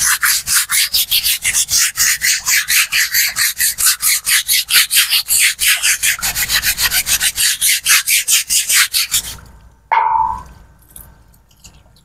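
Fast, even scrubbing strokes, about five a second, on the wet bottom tray of a canary cage as it is cleaned under a hose; the scrubbing stops about nine seconds in and a short knock follows.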